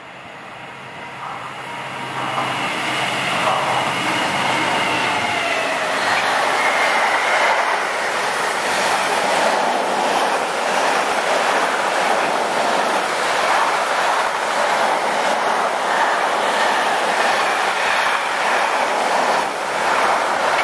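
Class 66 diesel-electric locomotive with its EMD two-stroke engine passing at speed with a container freight train. The engine note builds as it approaches and drops in pitch as it goes by about six seconds in. After that the container wagons run past steadily, rumbling and clacking over the rail joints.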